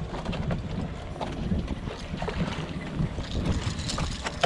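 Wind buffeting the microphone over water moving against a small boat's hull, with scattered light clicks and knocks.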